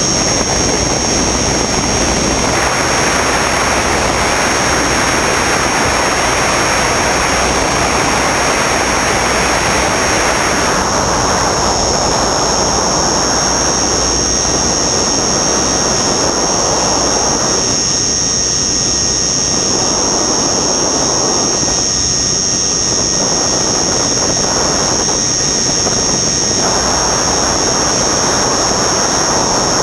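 RC helicopter in flight, heard from its onboard FPV camera: a steady high motor whine over a rushing hiss of rotor wash and wind on the microphone. The hiss swells and eases throughout.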